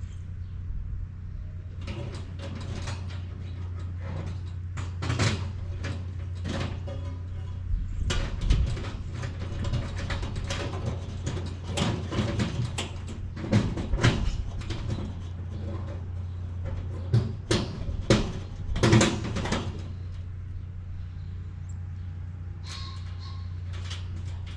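Irregular metallic clicks, knocks and rattles of galvanized steel raised-bed panels being handled and bolted together. It is loudest in the middle and settles near the end, over a steady low hum.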